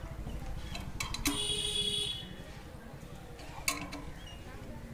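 Scattered metal clicks from the clamp bolts of a satellite dish mount being tightened by hand, a few about a second in and one more late on. A brief high tone sounds from about a second and a half to two seconds, over a steady low outdoor rumble.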